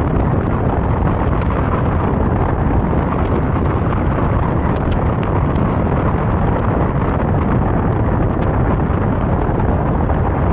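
Loud, steady wind buffeting the microphone of a camera held out of a moving car's window.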